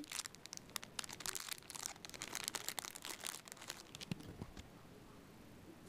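Thin plastic packaging of an animal-bun squishy toy crinkling as it is handled and opened: a quick run of small crackles for the first three seconds or so, then only faint handling sounds.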